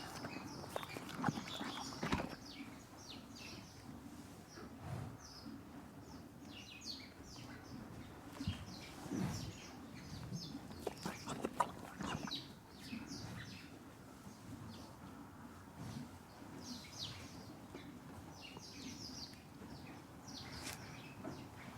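A horse chewing hay, with irregular crunching and a few knocks, loudest at the start and again about ten seconds in. Small birds chirp and sing throughout.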